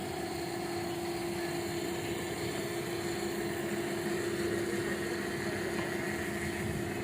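An engine running steadily at idle, with a constant hum.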